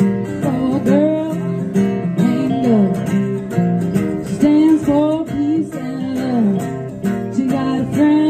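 Acoustic guitars playing a song, strummed chords under a melody of sliding, bending notes.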